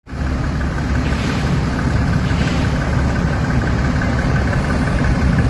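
Engine of an armoured military truck idling steadily, a low, even sound that does not change.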